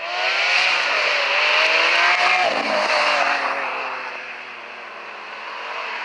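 Lamborghini supercar engine accelerating hard, its note climbing, with a gear change about two and a half seconds in, then fading as the car pulls away; the level picks up again near the end.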